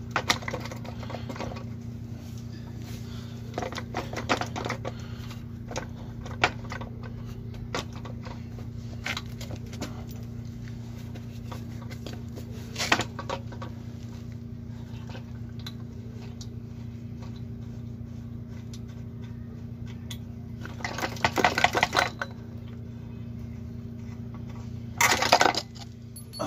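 Metal clinks and knocks of hand tools and parts as the engine's mounting bolt is worked out and the engine lifted free, with two bursts of rapid clicking near the end. A steady low hum runs underneath.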